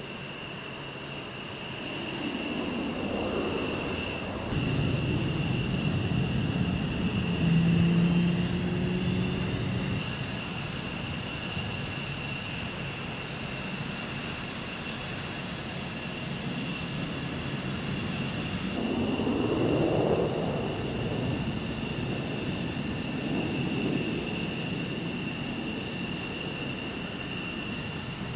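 Jet aircraft turbines running on a flight line: a steady high-pitched whine over a low rumble that swells and fades twice, with a short steady low hum a few seconds in.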